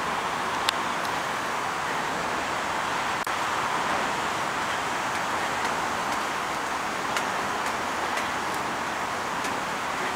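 Steady noise of city road traffic, with a few faint ticks scattered through it.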